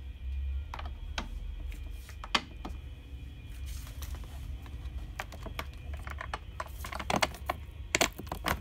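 Scattered clicks and knocks of hard plastic and metal parts being handled as a coil-spring shock absorber is fitted to the plastic chassis of a kids' electric ride-on car, with a quick run of louder knocks near the end, over a steady low hum.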